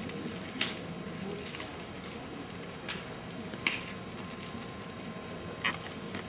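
Shiny foil gift-wrap paper crinkling and tearing as a wrapped book is opened by hand, with a few sharp crackles.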